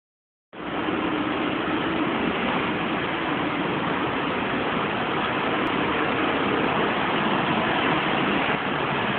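A steady, even machine-like running noise starts abruptly about half a second in and holds unchanged.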